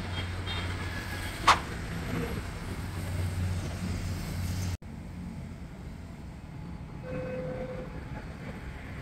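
Steady low background hum of indoor mall ambience, with one sharp click about a second and a half in. The sound drops out for an instant near the middle and returns quieter.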